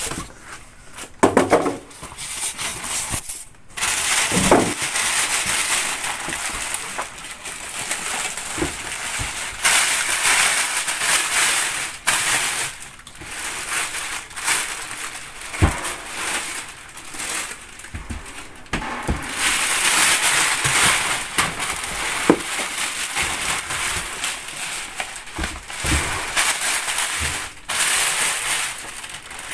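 Plastic bags rustling and crinkling in uneven stretches as they are pulled off a pair of speaker cabinets, with styrofoam packing scraping as it is lifted out near the start.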